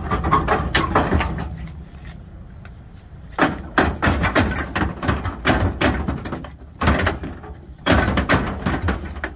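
Heavy chrome rear bumper of a 1967 Chevrolet Impala being wrenched and shaken by hand, metal clunking and scraping in several bouts.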